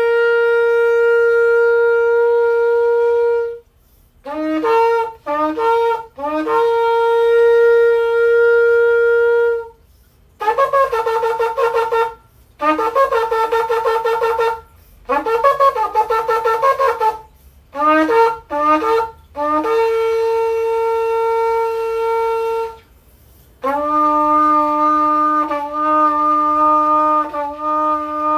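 A 46.5-inch kudu-horn shofar blown in a series of blasts: long held notes, short broken notes and rapid staccato runs. Near the end it drops to a lower, deeper held note that wavers a little.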